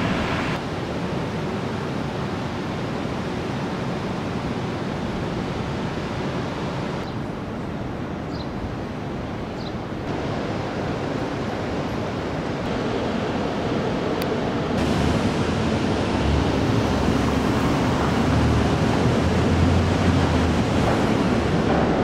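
City street ambience: a steady wash of traffic noise that changes abruptly at several cuts, with a low vehicle engine rumble louder in the second half.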